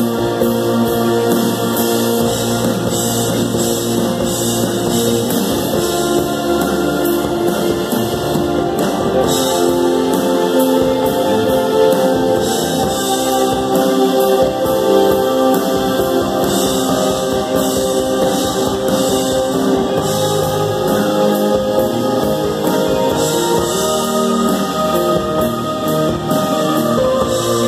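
Live band playing a mostly instrumental passage: piano and keyboards with guitar and drums.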